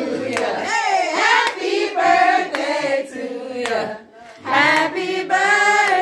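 A group of people singing together, with a clap about once a second. The singing breaks off briefly about four seconds in, then carries on.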